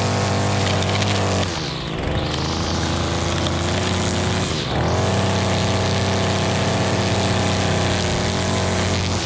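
String trimmer's small engine running at high speed as its line edges along a concrete sidewalk. The revs dip briefly about a second and a half in and again around four and a half seconds, then pick back up.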